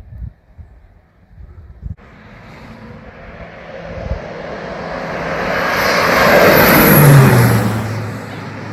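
An airplane flying past: its engine noise cuts in about two seconds in and swells to a peak about seven seconds in, where its pitch drops as it passes, then eases off.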